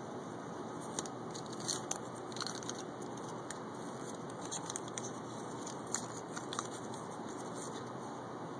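Small folded paper slips being picked up and unfolded by hand, crinkling and crackling in a scatter of short sounds between about one and seven seconds in, over a steady background hiss.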